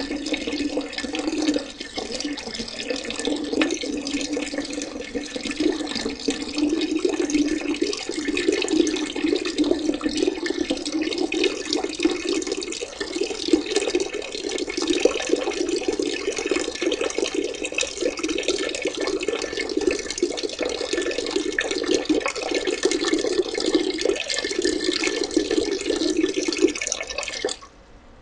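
A urine stream splashing steadily into the water of a toilet bowl, faltering briefly about two seconds in. It stops abruptly near the end.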